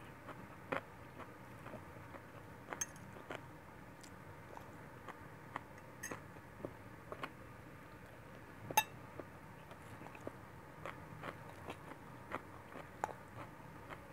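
A person eating stir-fried noodles (pancit guisado) with a fork, heard close: quiet chewing and mouth sounds with scattered short clicks of the fork and plate, the loudest about two-thirds of the way through.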